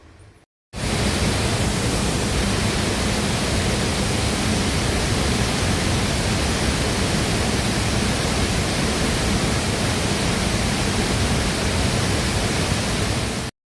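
Loud, steady rush of a waterfall heard close up, starting suddenly under a second in and cutting off abruptly just before the end.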